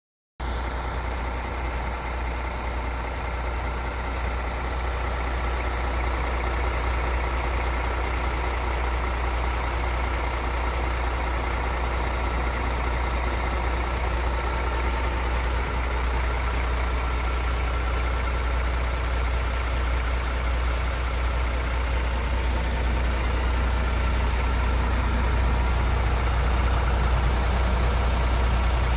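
MAN TGX 26.470 tractor unit's 12.4-litre straight-six diesel idling steadily. It cuts in abruptly about half a second in.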